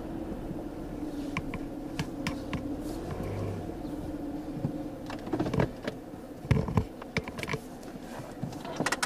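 2010 Ford Taurus Limited's 3.5-litre DOHC V6 idling at a standstill, picked up by a camera mic mounted on the hood, with scattered sharp clicks and knocks over the steady hum that get louder and more frequent in the second half.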